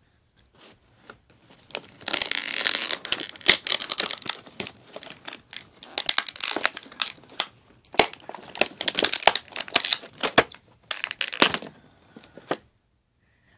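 Plastic toy packaging being torn open and crinkled by hand, in bursts of crackling and tearing with sharp clicks, starting about two seconds in and stopping shortly before the end.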